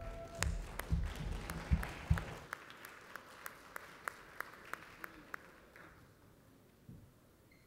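Audience applause that fades over a few seconds and ends in a few claps, about three a second, before stopping. Several dull low thumps sound during the first two seconds.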